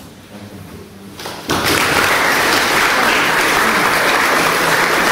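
Audience applause, breaking out suddenly about a second and a half in and going on steadily.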